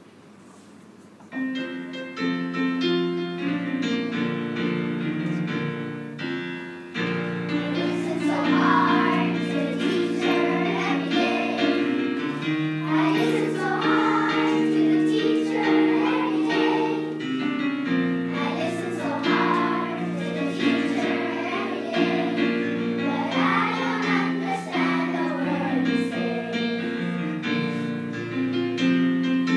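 Piano accompaniment starts about a second in. A children's choir joins it singing a song from about seven seconds in.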